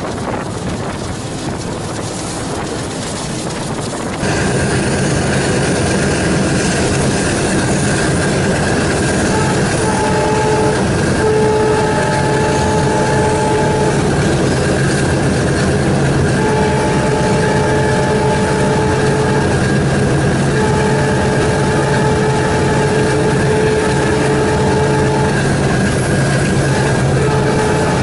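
ALCO WDG-3A diesel locomotive's 16-cylinder ALCO 251 engine running steadily under load, with a wind-like rushing before it comes in louder about four seconds in. A pair of steady tones comes and goes several times over the rest of the stretch.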